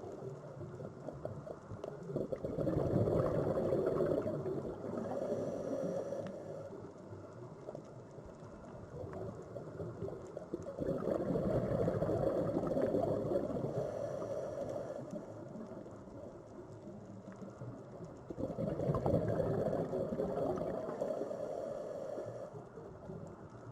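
Sea waves washing in: three surges about eight seconds apart, each swelling and then ebbing away over a few seconds.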